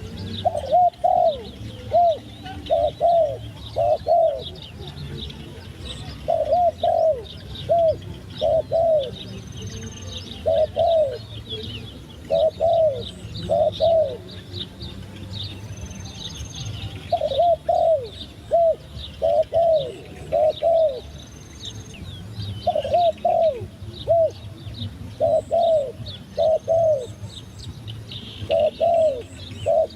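Turtle dove cooing: short phrases of two to four arched coos, repeated every second or two with brief pauses between runs. Small birds chirp faintly and high-pitched behind it.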